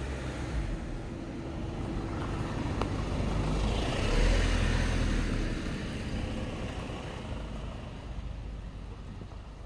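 A vehicle passing: its noise swells to a peak about four seconds in and then fades, over a steady background rumble.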